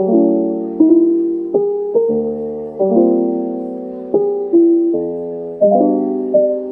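Background piano music: chords and single notes struck about every half second to a second, each left to ring and fade.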